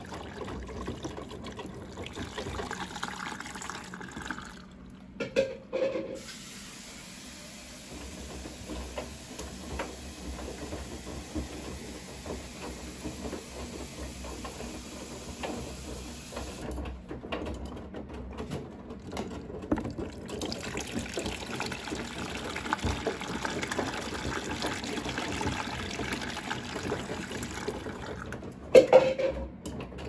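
Bosch front-loading washing machine taking in water through its detergent drawer at the start of a wash, a steady rush of running water as the drum turns the laundry. A few brief knocks stand out, around five seconds in and near the end.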